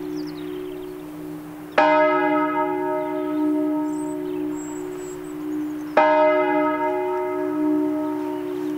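Church bell from a five-bell diatonic set tuned in E-flat, struck twice about four seconds apart. Each stroke rings out with many overtones that slowly fade, over the steady low hum of the bells still sounding.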